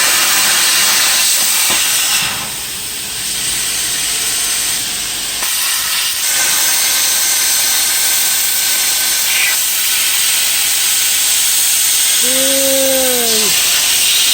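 CNC plasma cutter torch cutting: a loud, steady hiss of arc and air. It drops quieter for about three seconds, starting about two seconds in.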